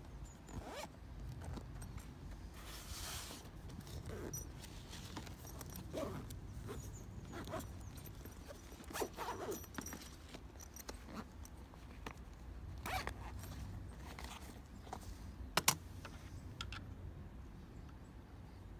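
Zip on a padded fabric carry bag being drawn closed, amid rustling and handling knocks of the bag. A single sharp click stands out late on.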